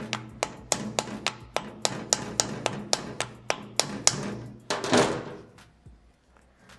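Small hammer tapping the end of a screwdriver seated in a stuck screw on a vintage drill's metal casing, a quick even run of taps about three to four a second, to shock the screw loose. About five seconds in comes a brief grating rasp, then quiet.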